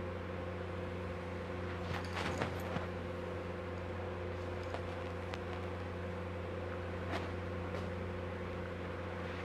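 A steady low machine hum, with a few light clicks a couple of seconds in and one more near seven seconds.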